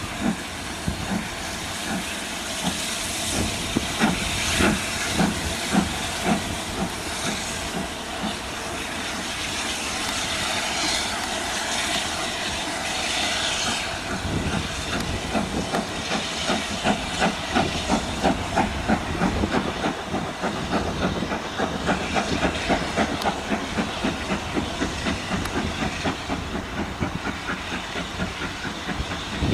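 Steam locomotive 70000 Britannia, a BR Standard Class 7 Pacific, working its train away: exhaust chuffs, slow at first and quickening to several a second about halfway through as it gathers speed, over a steady hiss of steam.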